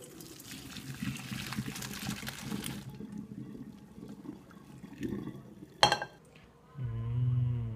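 Pasta water poured from a saucepan through a colander into a stainless steel sink: a splashing rush that fades away after about three seconds. A sharp knock comes about six seconds in, then a short, low, loud hum near the end.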